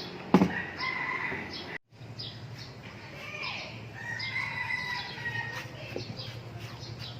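Birds chirping and calling in the background over a steady low hum, with a sharp knock just after the start.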